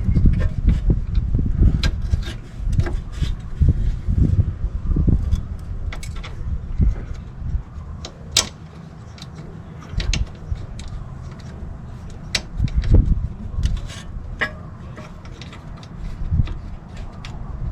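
Hand-tool work on a car's front suspension: irregular metallic clicks and clinks of tools and bolts, over low thumps and handling rumble.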